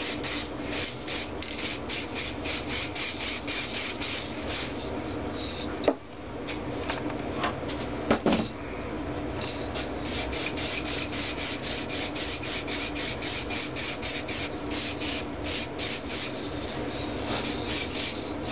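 Aerosol spray-paint can hissing in quick short bursts, about three a second, as paint is sprayed on in passes. The spraying pauses briefly about six seconds in, with a couple of light knocks around six and eight seconds in.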